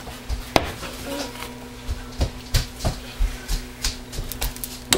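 Irregular light knocks and clicks, about a dozen, as soap bars and a wooden wire soap cutter are handled, over a steady low hum.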